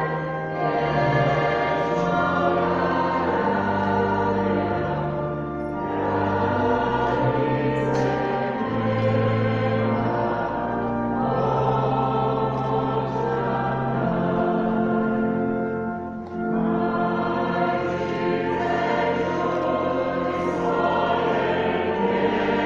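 A choir singing a slow hymn-like piece in full harmony, with long held bass notes, in several phrases with short breaks between them; it cuts off suddenly at the end.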